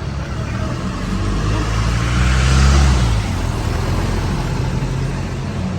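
Street traffic heard from a moving ride: engines running steadily, with a vehicle passing close and loudest about two and a half seconds in.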